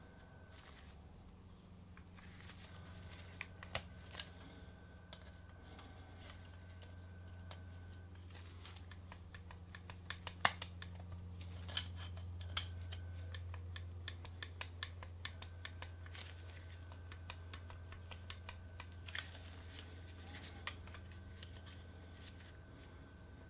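Red slip-joint pliers gripping and working a small rusty part of an old Bulldog revolver: scattered small metal clicks and scrapes, thickest about halfway through and again later, over a steady low hum.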